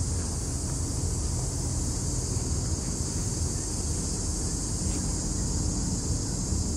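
Norfolk Southern diesel freight locomotives running as they pull a train slowly along, a steady low rumble. A steady high insect drone sits over it.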